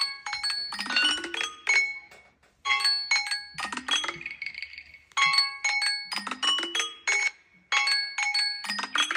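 Mobile phone ringtone: a short melody of quick, bright struck notes, the phrase repeating about every two and a half seconds.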